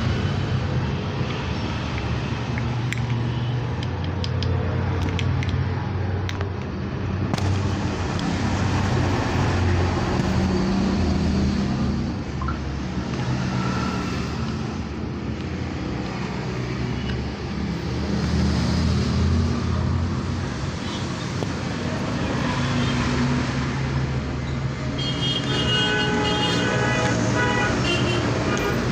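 Steady road traffic and motor-vehicle engines running past, a continuous low hum that swells and fades, with a few light metallic clicks of brake parts being handled early on and a brief high tone near the end.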